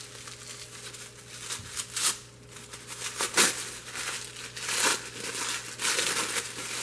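Tissue paper crinkling and rustling as it is unwrapped by hand, in irregular bursts.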